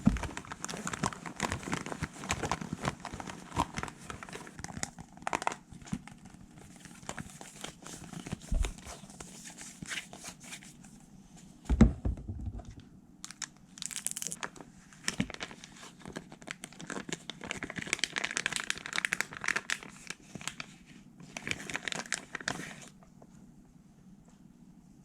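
ASMR tapping, wiping and brushing close to the microphone: dense scratchy, crinkly strokes with scattered taps and one loud knock about twelve seconds in. It dies down near the end.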